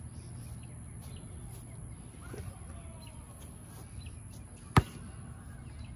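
A basketball hitting hard once, a sharp loud knock near the end, with another hit at the very end, over faint outdoor background with a few bird chirps.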